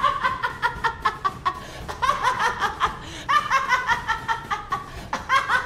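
A man laughing in several runs of quick, high-pitched snickers, each run lasting about a second, with short pauses between them.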